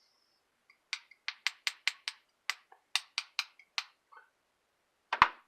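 A quick run of about a dozen sharp clicks over some three seconds, roughly four a second, then one louder knock near the end: small parts and tools being handled on a workbench while a desoldering pump is taken apart for cleaning.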